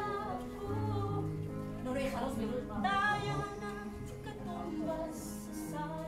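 A woman singing solo to an instrumental accompaniment with sustained low notes beneath her voice.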